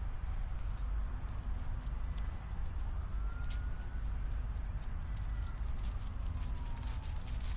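Footsteps of a person walking along a park path, over a steady low rumble. A faint whistle rises and then falls in the middle.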